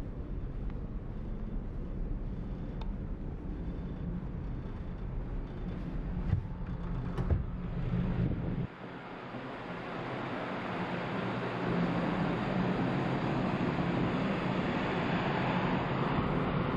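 Steady low hum of the ferry's engines inside a passenger corridor, with a couple of sharp clicks from a deck door's latch about six and seven seconds in. The hum then gives way to rushing wind and sea noise on the open deck, growing louder, with wind on the microphone.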